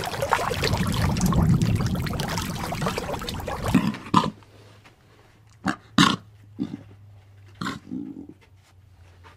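A loud, rough animal call lasting about four seconds, then several short, sharp sounds.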